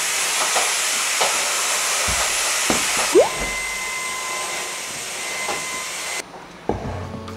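Steady loud rushing hiss, with a short rising whistle about three seconds in. The hiss cuts off shortly before the end and background music begins.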